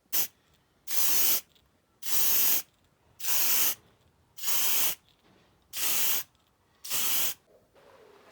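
Seven short hissing bursts of pressurised spray in a row, about one a second, the first very brief and the rest about half a second each.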